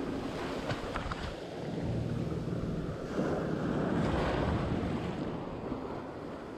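Sea waves washing with wind buffeting the microphone, the noise swelling and easing.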